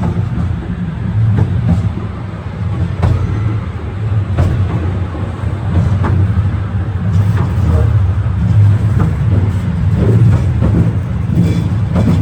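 Cable-hauled carriage of the Scenic Railway climbing the steep incline: a steady low rumble of the running gear on the track, with a sharp knock every second or so.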